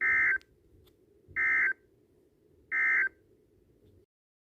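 Emergency Alert System end-of-message data tones: three short, loud, buzzy bursts of digital warble about 1.35 s apart, which signal that the broadcast alert is over. A faint hum under them cuts off about four seconds in.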